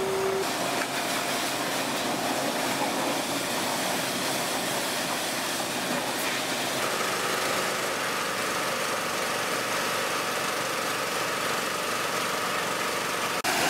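Petrol-engine pressure washers running steadily, with the hiss of high-pressure water spray against a truck. The engine's steady note changes pitch about halfway through.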